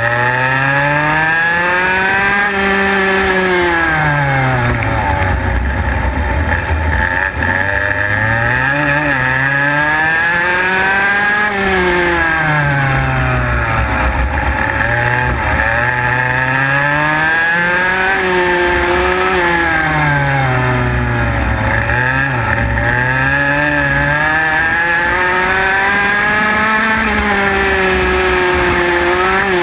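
IAME X30 125cc two-stroke kart engine heard onboard while racing, its note climbing under acceleration and dropping when the kart slows for corners, about four times over.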